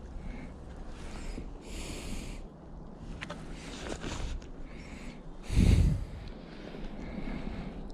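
A person breathing and sniffing close to the microphone in repeated short, airy bursts, with one louder low bump a little past halfway.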